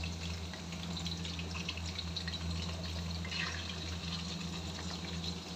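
Raw chicken pieces frying in oil in an iron karahi, a steady crackling sizzle, with a steady low hum underneath.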